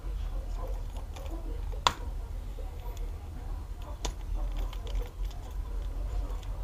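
Handling clicks from a suction-cup tool and phone being worked by hand: one sharp click about two seconds in, a softer one about four seconds in, and a few faint ticks, over a steady low hum.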